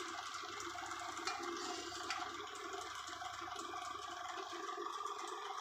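Hot oil sizzling steadily in a kadai as a batch of wheat-flour pakoda finishes deep-frying. The sizzle is fairly quiet and even, the sign that the pakoda are cooked through and crisp.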